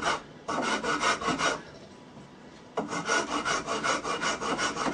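Flat metal file scraping across a hard, dense hardwood clamped in a vise, in quick, even back-and-forth strokes, with a pause of about a second near the middle.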